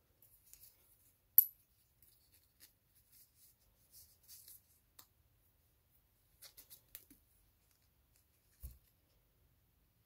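Faint handling noises of a watch on a fabric strap: small clicks and rustles, with one sharper click about a second and a half in and a soft thump near the end.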